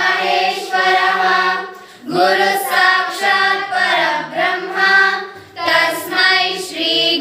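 A group of schoolchildren singing a devotional Guru Vandana song together, in phrases with short breaks for breath about two seconds and five and a half seconds in.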